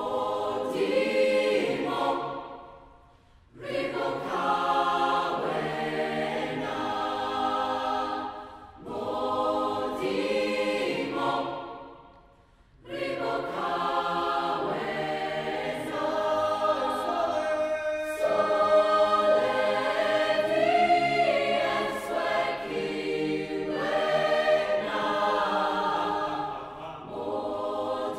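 Mixed high school chamber choir singing in full voice, in phrases broken by short breaths about 3, 8 and 12 seconds in.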